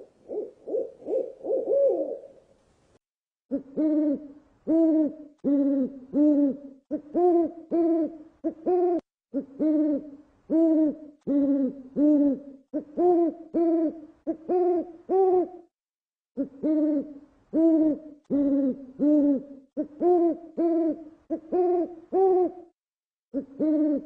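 Owl hooting: a quick burst of notes at the start, then long runs of repeated hoots, about two a second, each note rising and falling in pitch. The runs break off briefly a few times.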